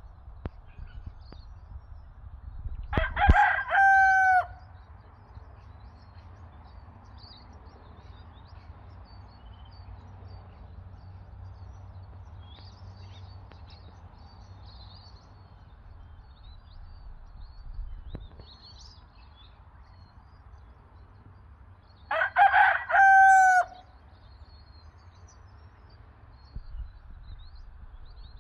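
French Black Copper Marans rooster crowing twice, a few seconds in and again about twenty seconds later, each crow about a second and a half long and falling away at the end.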